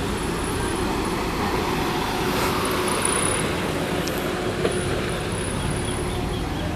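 Cars rolling slowly past at close range on a dirt road: a steady low engine hum and tyre noise.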